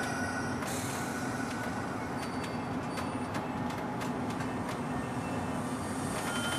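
NJ Transit commuter train, with a cab car leading and an ALP-46 electric locomotive pushing, rolling slowly into the station. The rumble is steady, with a low hum, and there is light clicking of wheels over rail joints around the middle.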